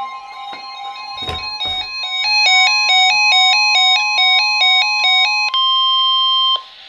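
NOAA Weather Radio's steady 1050 Hz warning alarm tone, with electronic alert beeps stepping quickly between pitches over it, the sign of a warning-level alert. There are two dull thumps at about a second in. Near the end the tones cut off suddenly, leaving radio hiss.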